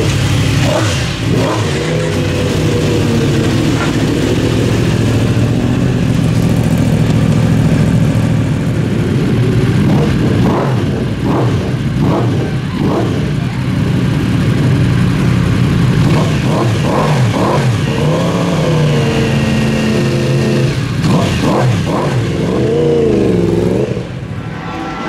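Yamaha YZF-R1 superbike engines, crossplane inline-fours, running at idle with repeated throttle blips, the revs rising and falling over and over. The sound drops back near the end.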